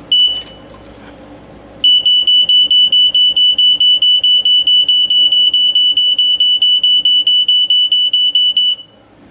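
Smoke alarm's piezo horn sounding under test: one short chirp, then about seven seconds of rapid, very loud beeping at a single high pitch, roughly five beeps a second, which stops abruptly.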